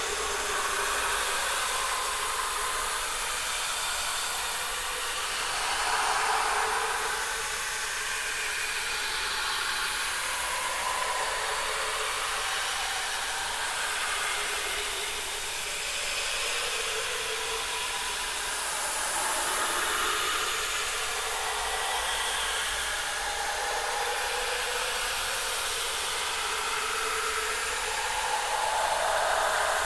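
Creepy horror ambience sound effect: a steady, airy hiss that swells louder a few times, slowly and without any beat.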